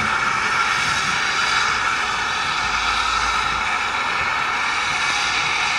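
Steam locomotive working away under steam, heard as a steady rushing noise with no distinct exhaust beats.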